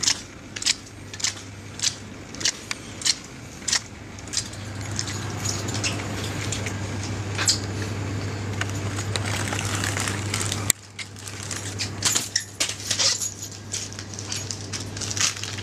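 Footsteps on a hard shop floor at an even walking pace, then a steady low hum. After a sudden cut, irregular crinkling and rustling as packaged cakes are handled on a shelf.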